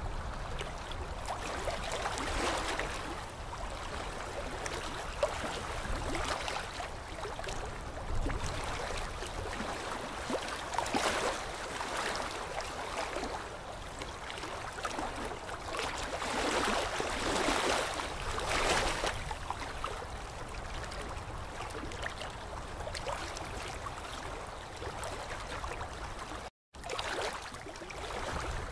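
Dental suction and air equipment hissing with a watery gurgle, swelling in several bursts.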